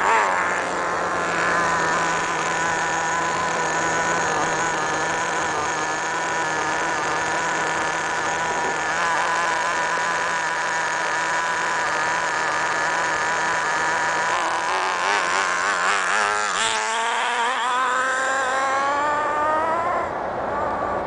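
Small two-stroke nitro glow engine of an HPI MT2 RC monster truck running at high revs, a steady high-pitched whine that wavers as the truck drives around. About three-quarters of the way through the note dips and then climbs again as the throttle comes off and back on.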